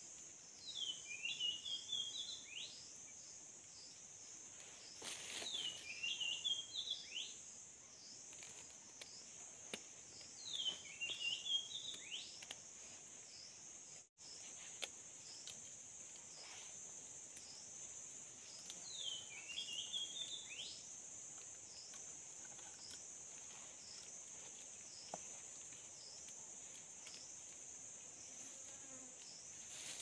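A steady high-pitched insect drone, pulsing slightly, with a bird singing a short phrase of quick notes that dips and then steps back up in pitch, four times.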